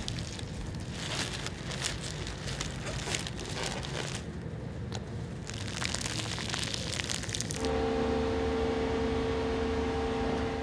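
Plastic vacuum-bagging film crinkling and crackling as it is handled and pressed by hand. About seven and a half seconds in it gives way to a steady machine hum with a few held tones.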